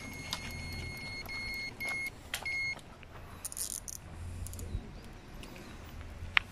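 Electronic carp bite alarm beeping in a fast, broken run of high tones for about three seconds, then stopping: a fish has taken the bait and is pulling line. Faint clicks and rustling follow.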